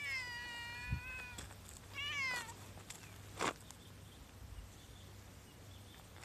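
A cat meowing twice: a long, fairly level meow, then a shorter meow falling in pitch about two seconds in. A single sharp thump follows about a second later.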